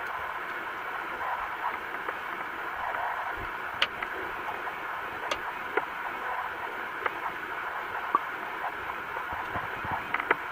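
Underwater ambience heard through a waterproof camera's sealed body: a steady muffled hiss, with a few sharp clicks scattered through it.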